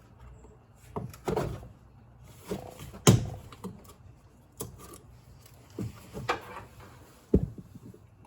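Irregular knocks and clunks of objects being handled and set down, about eight in all, the loudest about three seconds in and another sharp one near the end.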